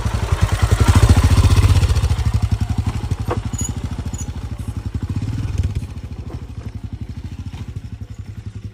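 Royal Enfield Himalayan motorcycle's single-cylinder engine running at low revs with an even, rapid thump. It is loudest about a second in, then eases off and drops in level a little before six seconds.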